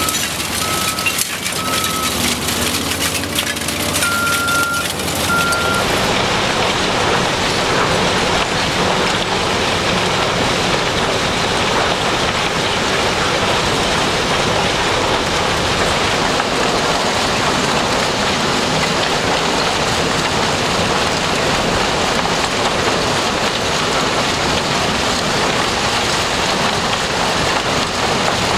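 Shredded scrap metal moving on conveyor belts and tumbling off them in a steady, dense clatter. A vehicle's reversing alarm beeps over it until about six seconds in.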